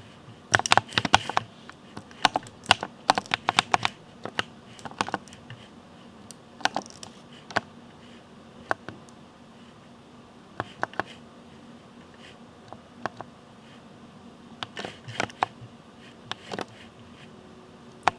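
Ducky mechanical keyboard with Cherry MX Speed linear switches being typed on: irregular runs of keystrokes, busiest in the first few seconds, then sparser clusters with short pauses between.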